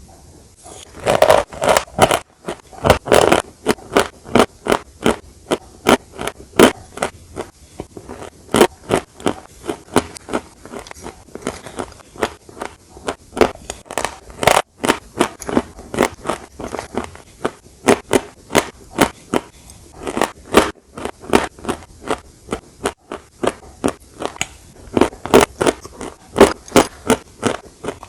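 Close-miked crunching as a crunchy dessert is bitten and chewed: a steady run of sharp crunches, about two to three a second.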